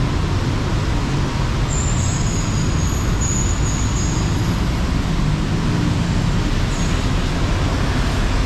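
Steady road traffic from a busy street below: a continuous rumble of passing cars and buses on wet roads.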